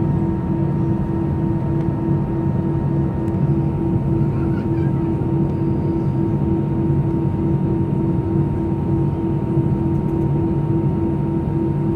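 Airbus A319 engines at idle heard from inside the cabin over the wing: a steady hum with a rapidly pulsing drone and a thin, steady whine on top.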